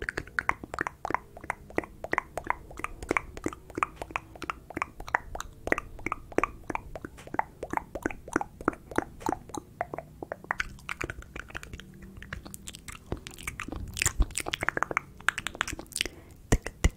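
Wet mouth and tongue clicks made right at the microphone, as ASMR mouth sounds. They come in a steady run of about three a second, then turn faster and more irregular from about ten seconds in.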